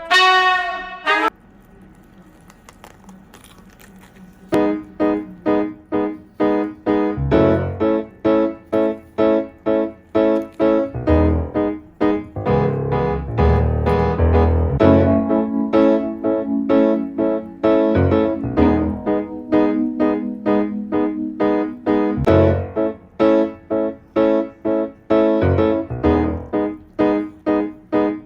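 Background music: a brass phrase ends about a second in, and after a short lull a keyboard comes in with short chords repeated in a steady rhythm over a bass line.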